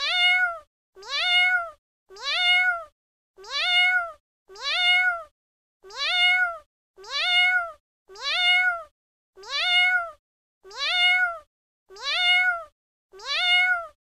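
A cat meowing: the same short meow, rising then falling in pitch, repeated about a dozen times at even intervals of a little over a second.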